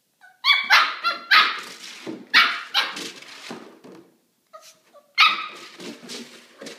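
Maltipoo puppy barking at a plastic milk jug: a run of short, high-pitched barks, with a brief pause about four seconds in before a few more.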